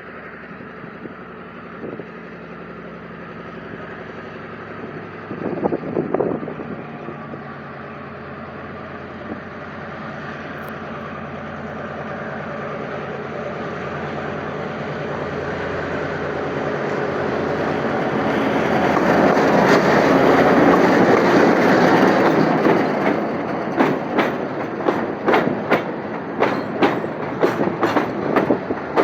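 GM GR12W diesel-electric locomotive approaching with its engine running, growing steadily louder and loudest about two-thirds of the way through as it passes. Near the end the freight wagons follow, their wheels clicking over the rail joints in a quick even rhythm.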